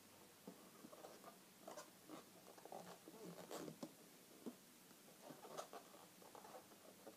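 Faint, irregular squeaking and rubbing of inflated latex twisting balloons as they are twisted and handled, busiest around the middle.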